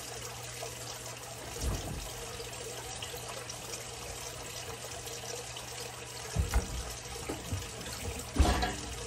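Evaporated milk pouring from a can into a saucepan of white sauce while a whisk stirs it, over a steady low hum. A few knocks of utensils or the can, the loudest near the end.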